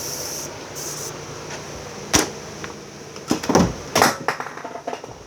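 Aerosol disinfectant spray hissing in two short bursts, then a sharp knock and a cluster of knocks and handling noises about three to four seconds in.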